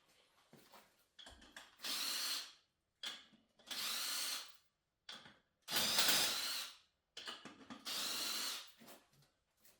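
A power drill run in four short bursts of about a second each, spinning up and stopping between them.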